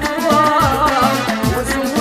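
Instrumental passage of North African chaabi music: a melody with sliding notes over a steady drum beat, with no singing.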